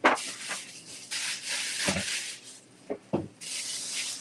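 Kitchen food-prep noises at a counter: three rasping, rustling scrapes, each lasting up to about a second, with a few light knocks in between.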